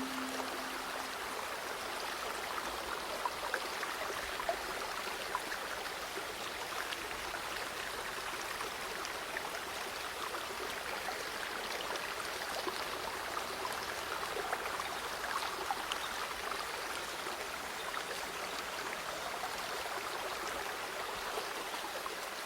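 River water flowing steadily with small splashes and trickles. The ringing of a breathing-cue gong dies away about a second in.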